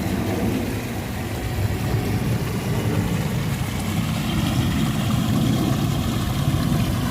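Flowing water rushing steadily, a dense low rumble with a fainter hiss above it.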